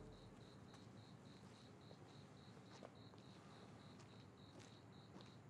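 Crickets chirping faintly and evenly, about three chirps a second on one high note.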